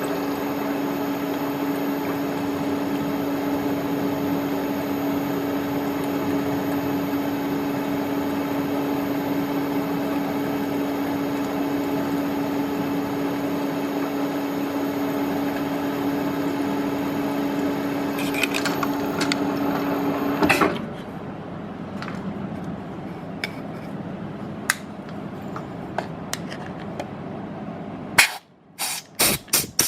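Milling machine spindle running steadily with a high whine as a small 4 mm end mill cuts into a hardened broken stud, then shutting off abruptly about two-thirds of the way through. Scattered light clicks follow, and near the end a quick run of regular pulses begins.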